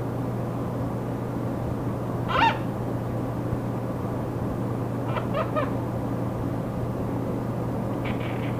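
A monk parakeet (Quaker parrot) calling over a steady hum and hiss of recording static: one loud high call about two and a half seconds in, a quick run of three short calls around five seconds, and a fast series of short clicky notes starting near the end.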